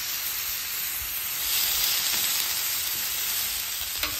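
Ground beef sizzling on a hot Blackstone flat-top griddle: a steady hiss that grows louder about a second and a half in, with a short click near the end.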